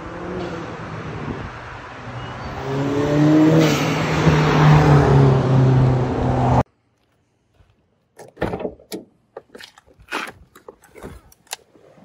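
A car driving up the road toward the microphone, its engine and exhaust note rising in pitch as it speeds up and growing louder as it nears, until the sound cuts off suddenly about six and a half seconds in. After a short silence come a few seconds of scattered light clicks and knocks.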